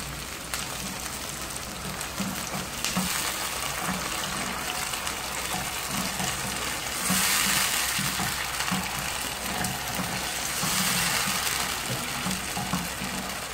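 Crushed tomato and sliced onions sizzling in a frying pan as they are stirred with a wooden spoon. The sizzle swells twice, about seven and eleven seconds in.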